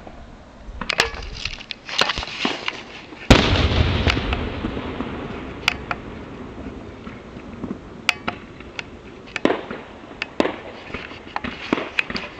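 Fireworks going off: scattered pops and bangs, with one loud boom about three seconds in that rolls away over several seconds, and pops coming more often toward the end.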